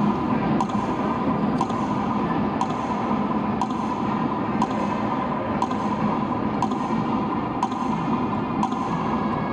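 A metronome ticking once a second over a stadium's public-address system, marking a minute of silence. Beneath it is the steady low hum of a large, hushed crowd in the arena.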